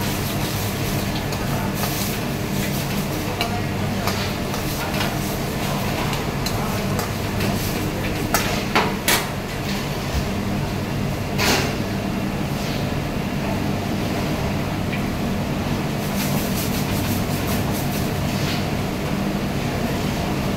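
Steady hum and rush of a commercial kitchen's gas burners and extraction. A few sharp metal clinks of cookware come between about eight and twelve seconds in.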